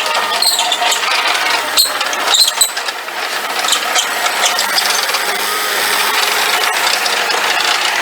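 Mustang MTL25 compact track loader running and working, with metallic clanks and rattles in the first few seconds, then a steadier machine sound. The footage is sped up, so the machine sounds faster and higher-pitched than in life.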